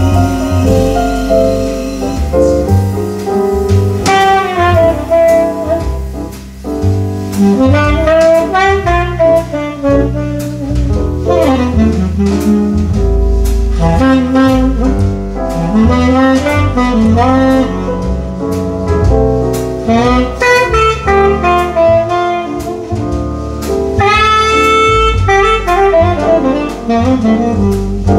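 Saxophone playing a jazz solo of flowing, gliding phrases, over double bass and drums.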